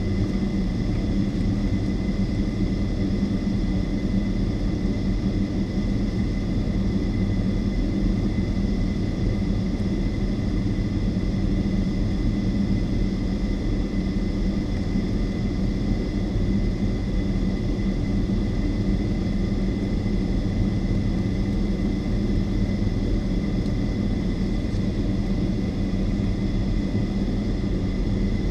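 Boeing 757-200's Rolls-Royce RB211 turbofans idling while the aircraft stands still, heard inside the passenger cabin: a steady low rumble with a thin, unchanging high whine.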